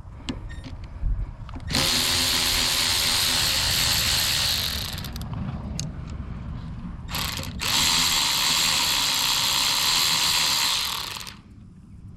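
Ratchet wrench backing out the 8 mm bolts of a mini bike's brake lever clamp. It runs in two long spells of about three seconds each, with a short burst between them.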